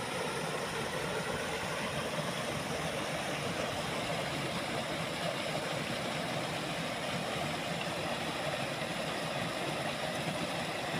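Steady rushing of water pouring over a low concrete weir in a canal.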